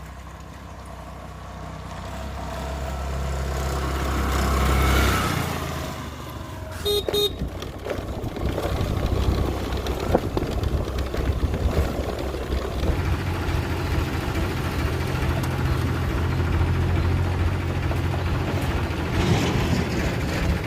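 Road vehicle running along a road, with steady engine rumble and rushing wind noise, swelling to a peak about five seconds in and then easing. A short double horn toot sounds about seven seconds in.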